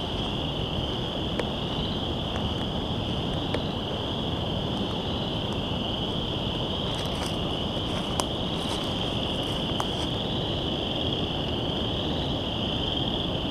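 A dense chorus of frogs calling together makes one continuous high-pitched shimmer, over a low steady rush of wind and outdoor noise.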